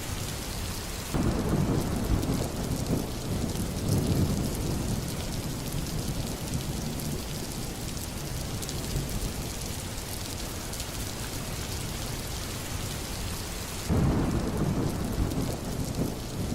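Steady rain, with two rolls of thunder: one breaks in about a second in and rumbles away over several seconds, and another breaks in near the end.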